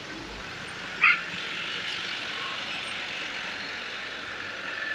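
Truck passing along a village road with steady engine and road noise, and one short sharp sound about a second in.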